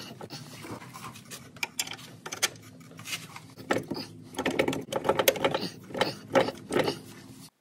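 Irregular metal clicks and taps as steel mounting bolts are slid through the new strut's lower bracket and the steering knuckle and the parts are shifted into line.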